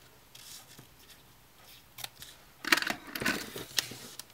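Scissors snipping the ends of a tied ribbon, with a few sharp cuts and some rustling of ribbon and paper in the second half.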